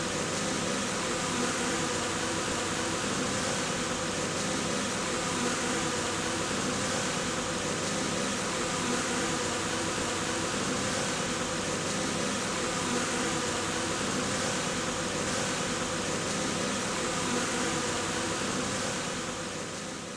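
Steady buzzing hum of many honeybees around the hive entrances, fading out near the end.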